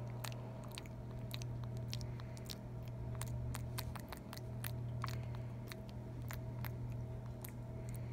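Young long-tailed (java) macaque mouthing and licking its fingers close up: irregular wet clicks and lip smacks, several a second.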